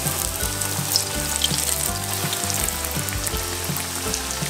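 Tofu martabak parcels wrapped in spring-roll skins deep-frying in hot oil in a wok: a steady sizzle full of fine crackling. Background music plays underneath.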